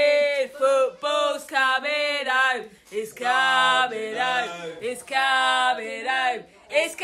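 A man singing in short phrases, his pitch bending up and down between them.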